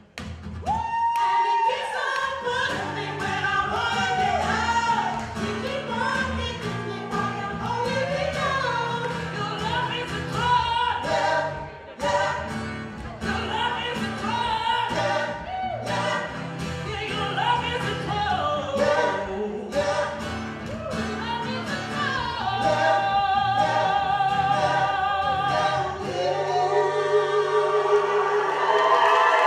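A song sung with musical accompaniment: a singing voice over steady bass notes and a regular beat, ending on long wavering held notes.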